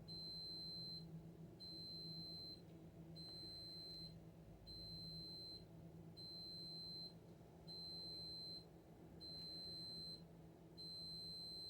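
An electronic beeper sounding a high, steady-pitched beep about once every second and a half, each beep just under a second long, over a faint low steady hum.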